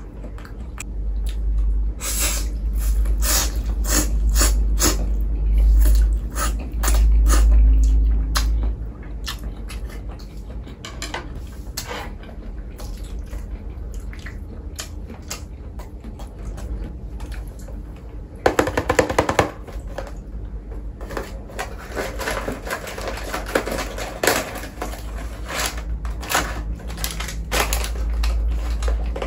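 Close-up eating and food-handling sounds: a run of clicks, taps and crackles, with louder crinkling about 18 seconds in and again around 22 to 25 seconds, and a low rumble during the first nine seconds.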